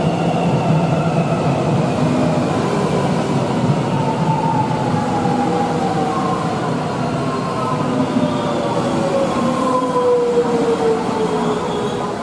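X'Trapolis 100 electric suburban train pulling into an underground platform and slowing to a stop. Its motor whine falls steadily in pitch as it brakes, over the steady noise of the wheels on the rails.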